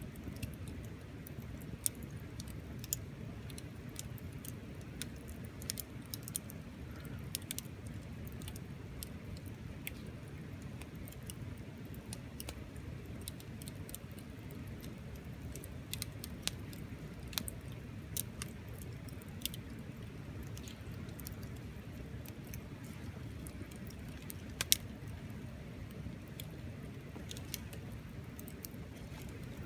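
Wood fire crackling: irregular sharp pops and snaps over a steady low rumble, with one louder pop near the end.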